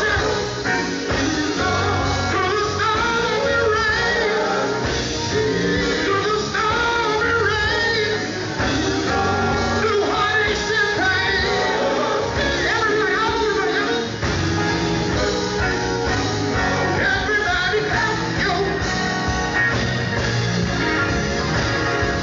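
Male gospel vocal group singing live over a band of electric bass, electric guitar, drums and keyboards.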